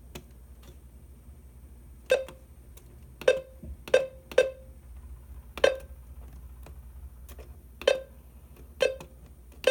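Button presses on an AlertWorks EAR10 weather radio while stepping through its setup menu: about eight short, sharp clicks, each with a brief ringing tone, at uneven intervals a second or so apart.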